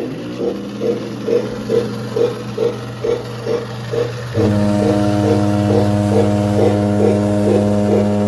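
O scale model steam locomotive's electronic sound: a steady chuffing about two and a half beats a second over a low hum, with a multi-tone whistle starting about four seconds in and held to the end.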